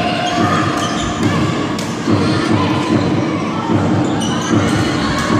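Volleyball rally in a sports hall: several sharp smacks of the ball being hit, about a second apart, over a steady din of spectators shouting.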